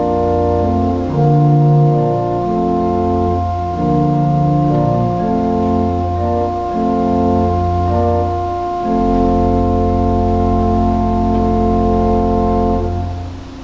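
Organ playing slow sustained chords over a moving bass line, closing on a long held final chord that stops shortly before the end.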